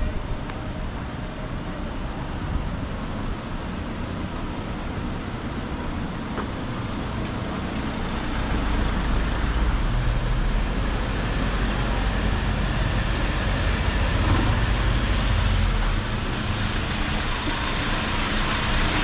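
City street traffic noise, with a motor vehicle's low engine rumble that swells about eight seconds in and drops away fairly suddenly a few seconds before the end.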